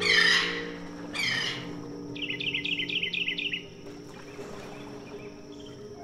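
Birds calling: two loud, harsh, falling squawks in the first second and a half, then a quick run of chirps, about six a second, lasting around a second and a half. Soft held notes of background music sound underneath.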